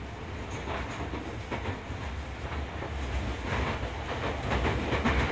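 Tokyo Metro 10000 series electric train running on the line: a steady low rumble with the clickety-clack of the wheels over rail joints, growing louder toward the end.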